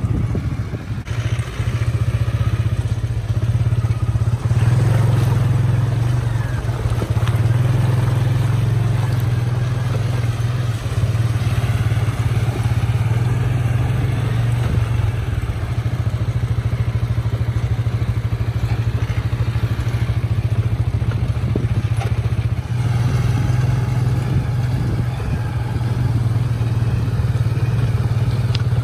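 Tata 407 4x4 light truck's diesel engine running steadily as the truck drives over a rough dirt and gravel track, with stones clattering under the tyres.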